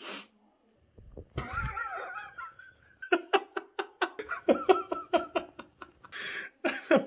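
A man bursting into loud, hearty laughter: a drawn-out opening, then rapid ha-ha pulses, about five a second.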